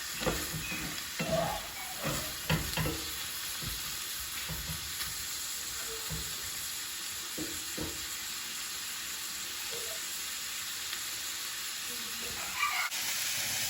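Shrimp frying in olive oil in a skillet, a steady sizzle, with a few short knocks of a utensil stirring in the pan in the first few seconds and again about eight seconds in.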